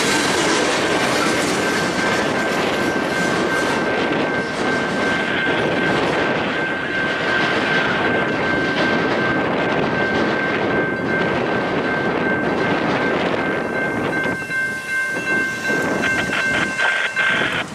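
Freight train of covered hopper cars rolling through a grade crossing, wheels clattering over the rails, while the crossing bell rings steadily. The train noise drops off about fourteen seconds in, and the bell stops near the end as the crossing gates go up.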